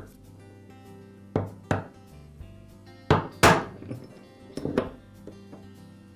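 Hammer tapping a steel punch to drive a pressed-in bearing out of a Porter Cable belt sander's front drum: about five sharp metallic taps, roughly in pairs, each with a brief ring.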